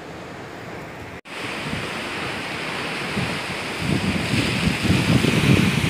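Surf breaking on a rocky shore as a steady rushing wash, with wind buffeting the microphone in gusts that grow stronger in the last couple of seconds. The sound cuts out for an instant about a second in.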